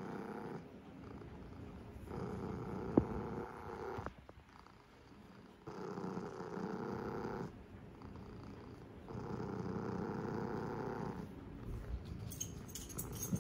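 Orange cat purring right against the microphone, the purr swelling and fading with each breath, about every three and a half seconds. A sharp click comes about three seconds in, and there is some crackling near the end.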